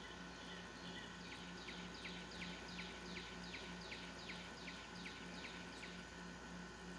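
A bird singing a run of about a dozen quick down-slurred notes, roughly three a second, starting a little over a second in and stopping near the end, over a faint low pulsing hum.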